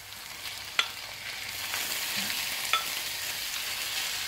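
Diced raw chicken frying with chopped onion in a pan, the sizzle growing louder about a second and a half in as it heats. A wooden spoon stirs it, knocking against the pan twice.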